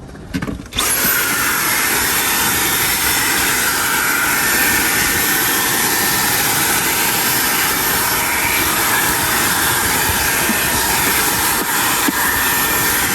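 Vacuum cleaner switched on about a second in and running steadily with a high whine, cleaning drilling debris out of a freshly drilled hole.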